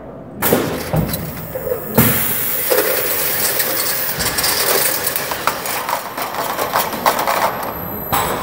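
FROMM automatic strapping head feeding, tensioning and sealing a heavy 32 mm steel strap around a bundle of tubes. Noisy mechanical clatter with many sharp clicks starts about half a second in, grows louder about two seconds in and keeps going, dipping briefly near the end.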